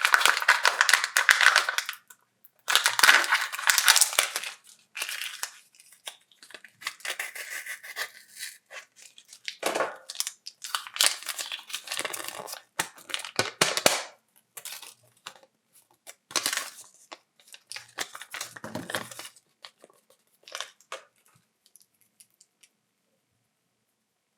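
Foil and plastic wrappers of Kinder chocolate eggs being torn open and crinkled by hand in irregular bursts, which stop near the end.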